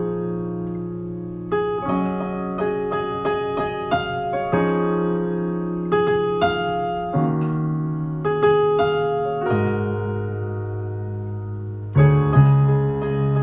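Solo piano playing slow sustained chords, with a new bass note every two seconds or so and a louder chord near the end.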